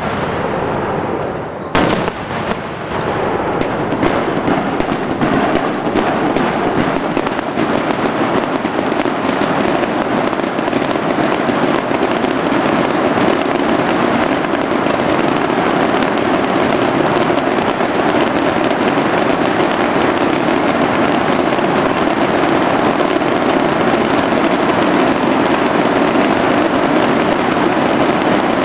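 Fireworks display: a shell bursts with a sharp bang about two seconds in, then a steady, dense crackle of many small pops carries on without a break.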